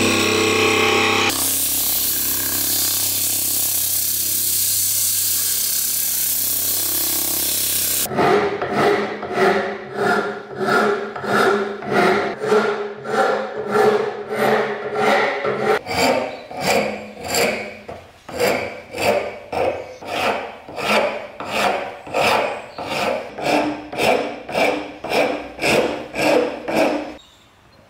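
A wood lathe runs with a steady hiss as a hand chisel cuts a spinning wooden handle. About eight seconds in this gives way to a hand file rasping across the wooden handle in steady back-and-forth strokes, about one and a half a second, stopping shortly before the end.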